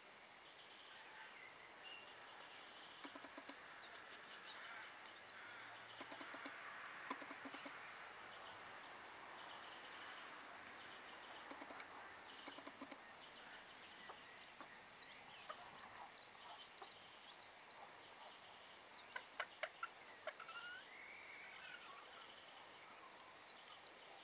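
Belgian d'Uccle bantam hen giving soft, low clucks now and then while dust bathing, faint. Near the end come a few quick clicks and short higher chirps.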